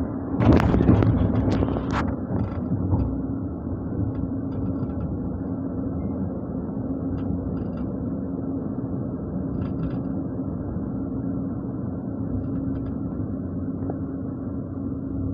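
Steady low rumble and hum of a moving road or rail vehicle, with a louder rattling burst in the first couple of seconds.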